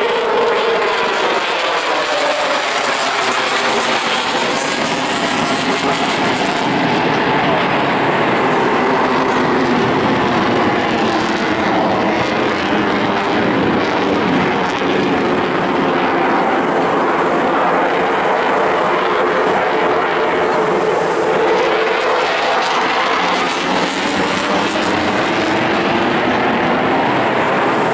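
Loud, continuous jet noise from a Eurofighter Typhoon's twin Eurojet EJ200 engines as the fighter flies its display. The tone of the noise slowly sweeps up and down as the aircraft moves across the sky.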